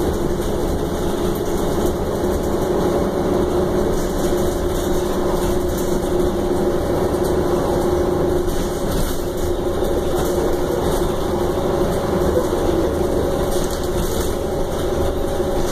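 Interior noise of a 2009 Orion VII transit bus under way: a steady engine and drivetrain hum with a whining tone over a low rumble, and a few faint rattles.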